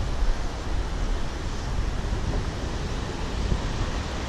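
Wind rumbling on the microphone over the steady wash of small waves breaking.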